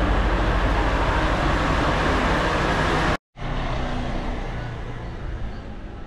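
Loud steady rumble with a low pulsing throb that cuts off abruptly about three seconds in, followed by quieter, fainter outdoor street ambience.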